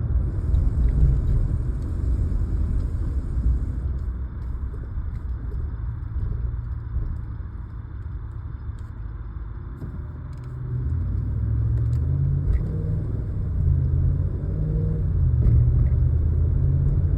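Pickup truck running with a low rumble. The rumble eases off a little past the middle, then builds again with an uneven, pulsing low drone.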